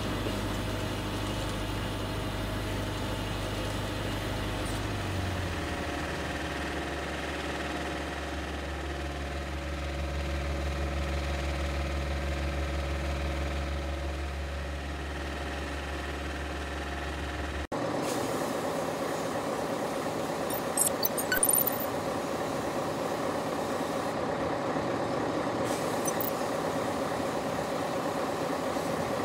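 A steady engine running at idle, a low even hum. About 18 seconds in it cuts abruptly to a different steady engine-like drone, with a few brief clicks shortly after.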